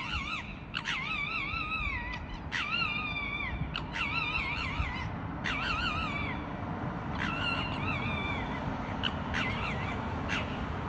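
Two red foxes in a squabble, calling at each other: a run of about eight high-pitched, wavering calls. Each starts abruptly and wobbles downward in pitch over about a second, with short gaps between them.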